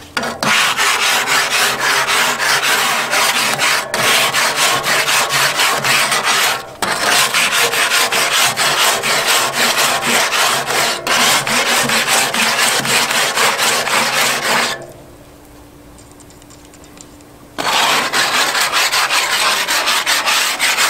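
Grill brush scrubbing back and forth across the grates of a Weber gas grill, a loud rapid scraping of quick strokes. It stops for about three seconds about two-thirds of the way through, then starts again.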